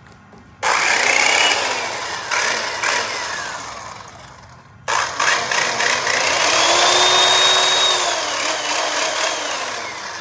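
A small electric power tool's motor switched on twice: each time it spins up with a rising whine and then winds down as it coasts. It is running from a newly wired outlet, showing that the outlet has power.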